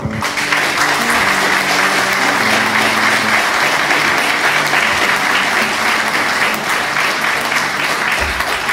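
Audience applauding steadily. Under the clapping, the tail of the intro music fades out in the first few seconds.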